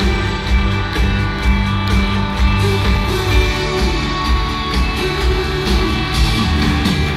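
Live pop-rock band playing an instrumental passage with a steady beat: drums and bass with strummed guitars and keyboards.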